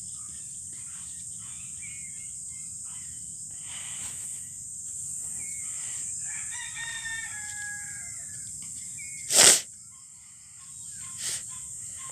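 A rooster crows once, a drawn-out call about six and a half seconds in, over a steady high chirring of insects. About nine and a half seconds in there is a single sharp knock, the loudest sound, and a softer one near the end.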